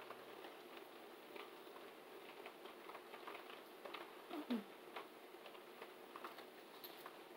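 Faint, scattered small ticks and light taps from a makeup brush and hands working eyeshadow onto an eyelid, at a very low level. About halfway through, one short low sound falls in pitch and stands out as the loudest moment.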